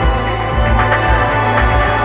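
Background music laid over the footage: a steady track with a repeating low beat and sustained tones.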